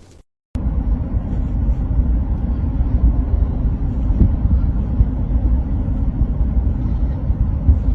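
A steady low rumble starts about half a second in, right after a moment of dead silence.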